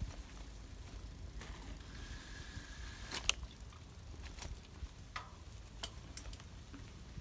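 Bicycle riding along a sandy dirt trail: a steady low rumble with scattered light clicks and rattles, and one sharper click a little over three seconds in. A faint, steady high tone runs for about a second just before that click.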